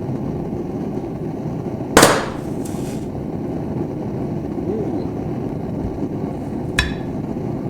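A firecracker set off by a red-hot knife blade, going off with one loud, sharp bang about two seconds in; a smaller sharp crack follows near the end, over a steady low background noise.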